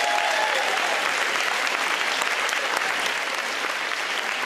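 Audience applauding steadily, with one voice calling out briefly at the start.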